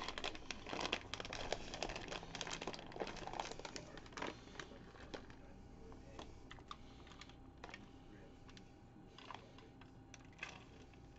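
Crinkling of a plastic bag of shredded mozzarella and small ticks and rustles as handfuls are sprinkled onto a disposable aluminium foil pan. Busy in the first few seconds, then sparser.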